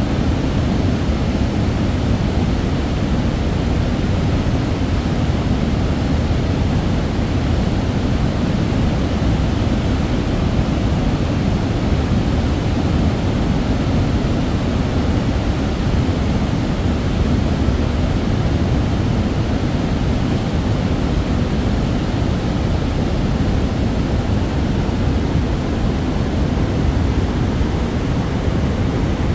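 Waterfall below the Cleveland Dam plunging into the canyon pool: a loud, steady rush of falling water, heaviest in the low end, with no change throughout.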